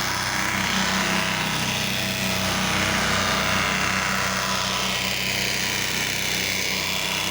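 Pressure washer's gas engine running steadily, with the hiss of spray over it as the concrete is post-treated with cleaning solution.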